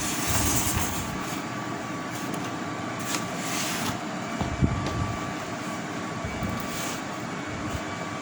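Handling noise as an LED TV set is turned over: brief swishes and a sharp knock about four and a half seconds in, over a steady background hum.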